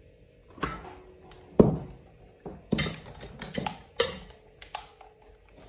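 Handling noise from a corded electric drill and its cord on a workbench: a series of sharp knocks, clatters and rustles as it is moved and set down, the loudest about a second and a half in. The drill is not running.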